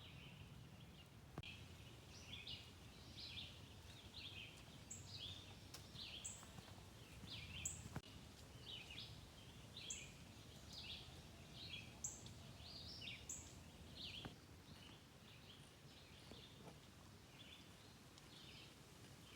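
Faint birdsong outdoors: several birds chirping in short, high notes that come irregularly, with a low background rumble beneath.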